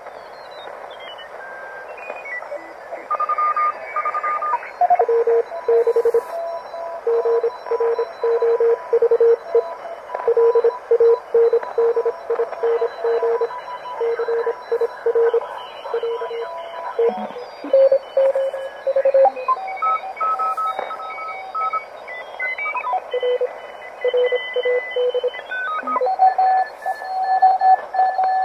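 Receiver audio from a homebuilt 40-meter direct-conversion QRP transceiver: band hiss with Morse code stations heard as keyed tones in dot-dash rhythm. As the tuning moves across the stations, their tones slide up and down in pitch.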